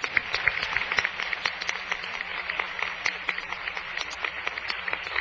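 Audience applauding, with many hands clapping at once. It starts suddenly right after a speech ends and keeps going steadily.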